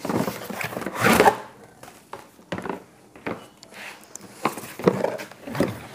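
Cardboard box packaging of a rotary hammer drill being handled and opened: irregular scraping, rustling and light knocks, busiest in the first second and again near the end.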